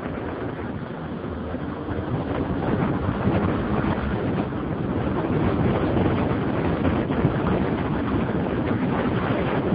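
Wind buffeting the microphone of a moving BMW F650 Funduro motorcycle, with its single-cylinder engine running underneath, growing a little louder about two and a half seconds in.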